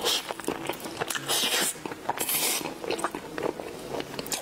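Close-miked mukbang eating: a pastry with a shredded crispy topping is bitten into and chewed. Wet mouth clicks and smacks come throughout, and there are three short crisp rustling crunches: at the very start, about a second and a half in, and a little after two seconds.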